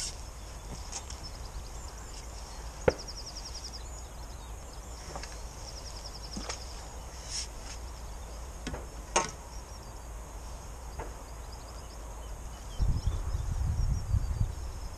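Wind rumbling on the microphone, with scattered sharp clicks and knocks of fishing tackle being handled as a netted bream is unhooked, and two short bursts of fast ticking. A stronger gust of wind rumbles near the end.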